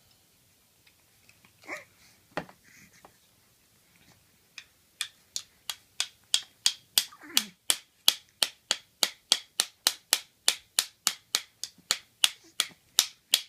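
A steady run of sharp plastic clicks, about three a second, from a child's plastic toy tool set. The clicks start about four and a half seconds in and keep going.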